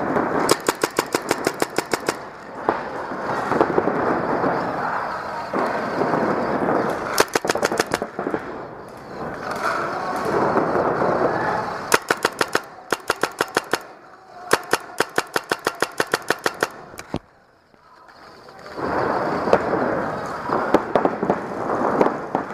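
Paintball markers firing in rapid strings of shots, several a second, stopping and starting again five or so times, over a loud noisy din.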